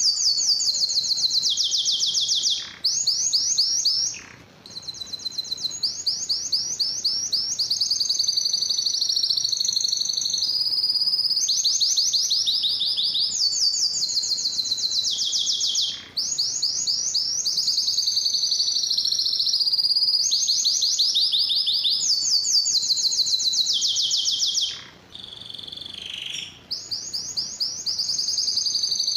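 Domestic canary singing a long, fast, high song of rapid trills and rolls, many sweeping down in pitch. A few short pauses break the run, and there is a softer passage near the end.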